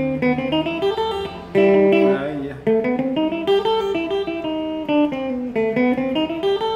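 Semi-hollow-body electric guitar playing a keroncong-style melody line in an A minor position: quick single picked notes running up and down the scale, with a few notes held briefly.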